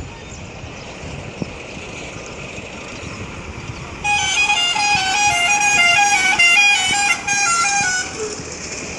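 A vehicle's multi-tone musical horn plays a quick tune of stepped notes for about four seconds, starting about four seconds in, over steady road-traffic noise.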